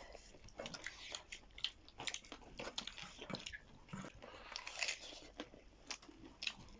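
Close-up chewing and biting of food, with many small irregular crunches and wet clicks.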